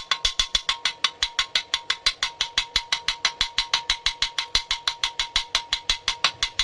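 Background music with a fast, even ticking beat of about seven clicks a second over a faint steady tone.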